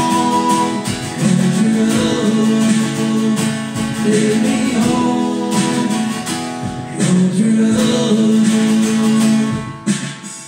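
Acoustic guitar strumming chords in the closing bars of a song, the sound dropping away about ten seconds in as the playing ends.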